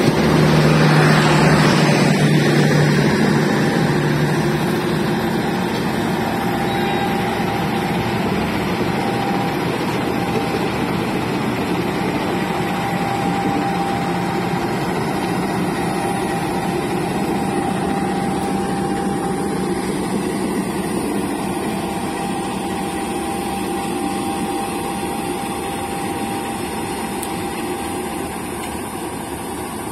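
Indonesian CC206 diesel-electric locomotive with its engine running steadily. It is loudest in the first few seconds, then slowly fades.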